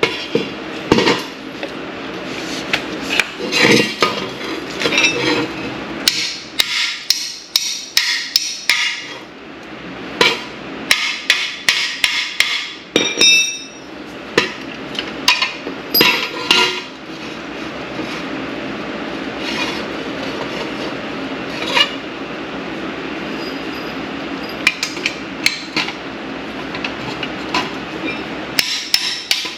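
Repeated metal clicks and knocks, some coming in quick runs, from jacks and hand tools being worked under a truck.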